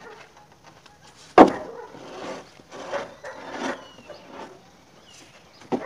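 A 100-kilo precast concrete joist knocking down hard onto a stack of others about a second and a half in, then scraping as it is shifted across them, with a second knock near the end.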